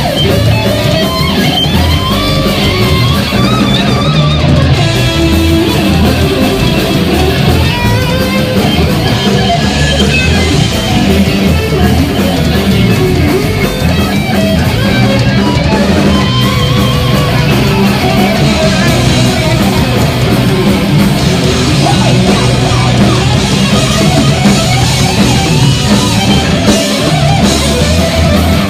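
A heavy metal band playing live: loud electric guitars over a heavy low end, continuous and dense.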